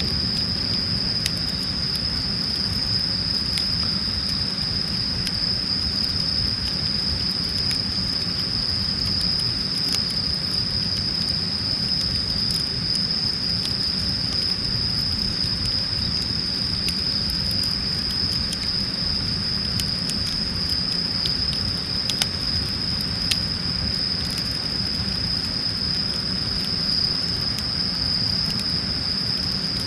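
Wood fire crackling in a steel fire-disc pit, with scattered sharp pops over a low steady rumble. A continuous high insect trill, typical of crickets, runs underneath.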